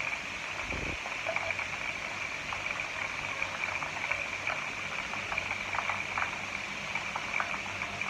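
Batter-coated chicken wings deep-frying in hot oil in a pan: a steady sizzle with fine crackling pops. A brief low thump about a second in.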